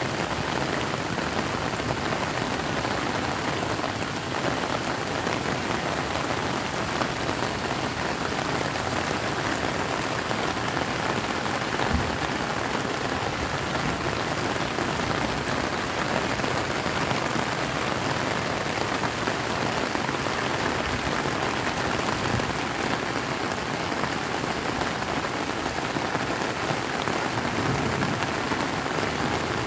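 Steady rain falling, an even continuous hiss with the odd sharper drop tick.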